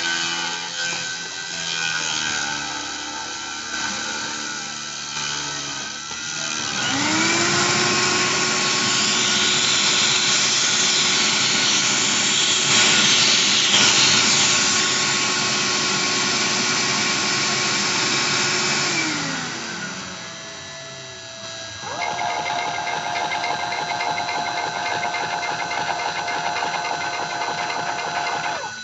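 CNC router's stepper motors whining through moves, then a Dremel rotary tool spins up about seven seconds in, runs at a steady high pitch for about twelve seconds and winds down. Steady motor tones of the machine resume a couple of seconds later.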